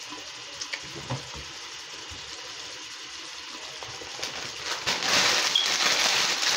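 Crinkly foil snack bag being crumpled and handled, starting loud and crackly about two-thirds of the way in, after a few faint handling clicks.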